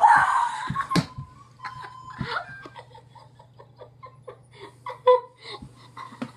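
A boy's loud yell of excitement as his flipped highlighter lands standing upright, then a run of quick bursts of laughter, with a thump about a second in.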